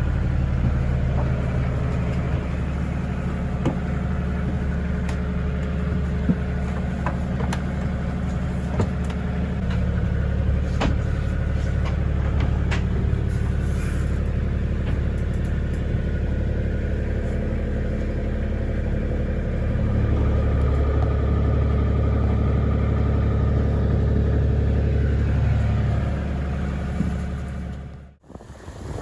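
Engine running steadily with a low, even hum and scattered light clicks and rattles, a little louder about twenty seconds in. It cuts off abruptly near the end.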